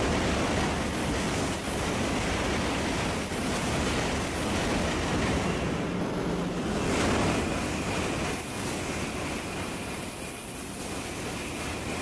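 Shinkansen bullet trains passing through the station at speed on the through track: a steady rushing noise of wheels on rail and air, swelling about seven seconds in.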